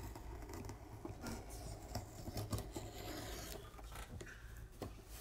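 Scissors working at the sealed seam of a cardboard shipping box, the blades scraping and rubbing on the cardboard with scattered sharp clicks.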